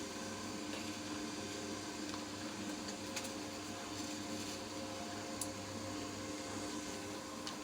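Continuous band sealer running: a steady hum of its belt-drive motor and cooling fan, with a few faint ticks, as a foil-lined paper bag is fed through to be heat-sealed.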